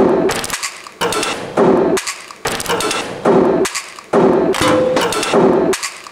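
Rhythmic sound collage of everyday objects being knocked and handled: thuds, knocks and clicking mechanism sounds repeating in a steady beat of about two hits a second.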